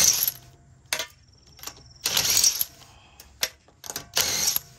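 Steel lug nuts dropped into a metal magnetic parts tray. A short metallic clatter comes at the start, about two seconds in and near the end, with light clinks between.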